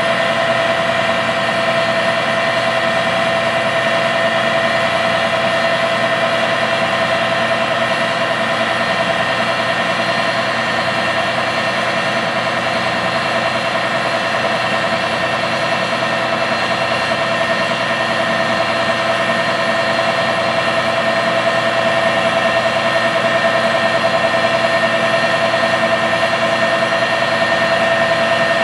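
John Deere 9470R articulated tractor's six-cylinder diesel engine running steadily at close range, with a constant high whine over the engine note.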